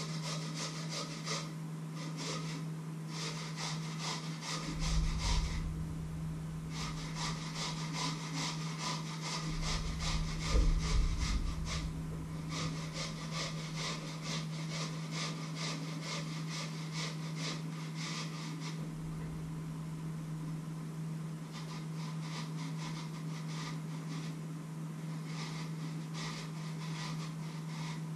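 Quick, rhythmic scraping strokes of hand food preparation over a metal bowl, about four or five a second, in runs broken by short pauses, with a couple of dull bumps and a steady low hum underneath.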